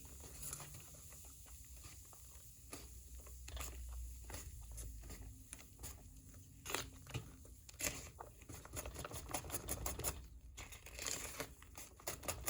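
Cake batter being stirred in a bowl after orange soda is added: a run of quick, light clicks and taps of the utensil against the bowl, coming faster in the second half.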